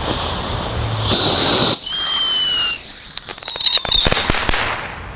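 Broekhoff Happy Wonder fountain firework hissing as it gets going, then giving a loud, very high whistle that falls slowly in pitch for about two seconds, with crackling sparks, before dying away near the end.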